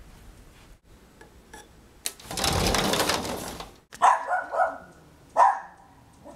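A loud rushing noise lasting under two seconds, then a small dog barking: three quick barks followed by one more about a second later.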